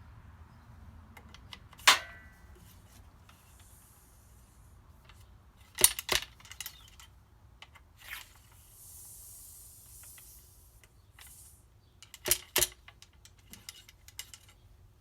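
Ramrod and metal handling noises while loading a 12 gauge muzzleloading shotgun: sharp metallic clicks and knocks as the over-shot cards are seated down the barrel, one about two seconds in with a short ring, a cluster near the middle and a pair near the end. Between them come two stretches of soft, high scraping hiss.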